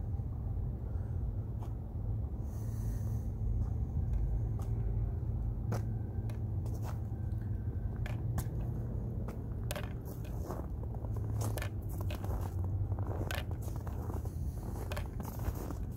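Footsteps crunching on snow, irregular steps that come more often from about six seconds in, over a steady low rumble.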